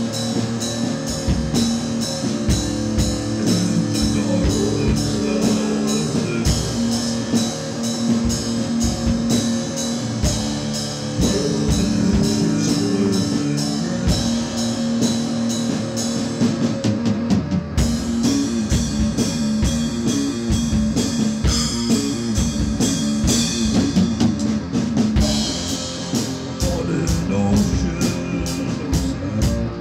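Rock music: a band playing drum kit and guitar, with steady drum hits and sustained guitar notes and no vocals.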